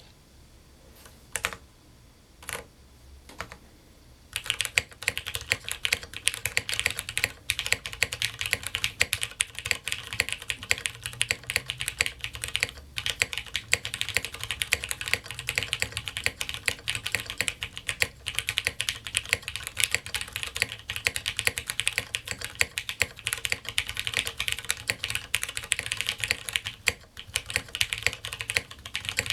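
Typing on a custom tenkeyless mechanical keyboard (LifeZone LZ GHv1, top-mounted polycarbonate plate) with lubed, filmed Cherry MX Brown tactile switches and PPS keycaps. A few separate key presses come first, then steady fast typing from about four seconds in.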